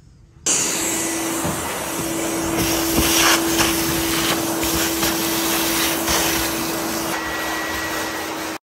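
Vacuum cleaner running with a steady motor hum, its hose sucking up sand and debris from the floor channel around the heating pipes. It starts suddenly about half a second in and cuts off sharply near the end.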